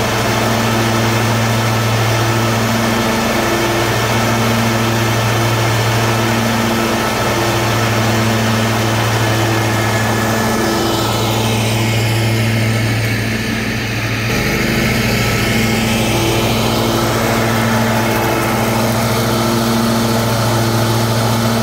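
John Deere D155 lawn tractor's V-twin engine running at a steady speed as the tractor moves slowly forward. About two-thirds of the way through, its low tone turns rougher.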